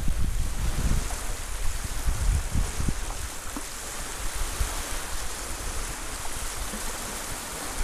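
Small waves lapping and washing on a sand-and-pebble shore, a steady hissing wash. Gusts of wind buffet the microphone, strongest in the first second and easing off after that.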